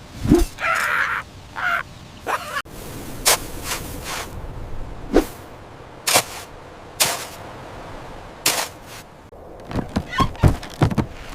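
A series of irregular knocks and thunks, spaced a second or so apart, with a short scraping noise about a second in and a quick cluster of knocks near the end.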